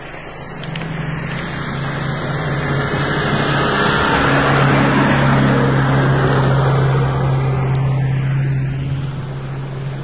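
Off-road vehicle's engine running steadily as it drives along a rutted forest track, with tyre and body noise that swells in the middle and eases off near the end.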